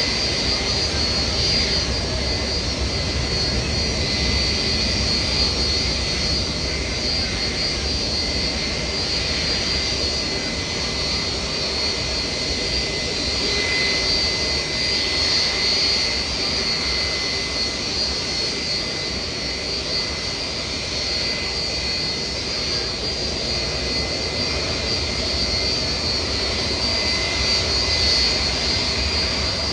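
Jet airliner engines running steadily: a high whine over a constant rushing noise, with no build-up or fade.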